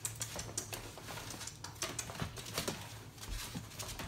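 Labradoodle puppies' claws and paws clicking and scrabbling on a hard plastic play slide: quick, irregular taps.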